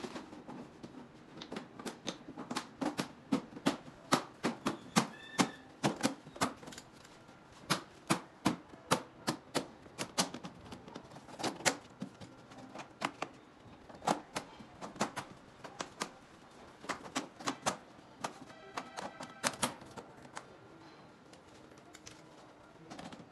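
White plastic storage cabinet panels being pressed into position, a long run of sharp, irregular plastic clicks and snaps, one to three a second.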